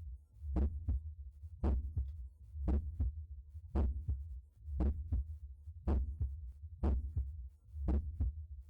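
Heart sounds heard through a stethoscope at the tricuspid area: a regular lub-dub, eight beats at a slow, even rate of a little under one a second. Each first sound is followed about a third of a second later by a softer second sound, over a steady low hum.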